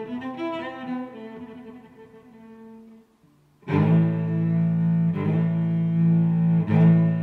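Background music: one piece fades out, and after a short pause a new, louder piece starts about halfway through with strong sustained low notes.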